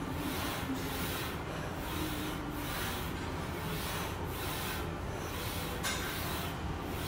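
A glute kickback machine worked in repetitions: a rhythmic rubbing and whooshing that swells a little faster than once a second, over a steady background hum.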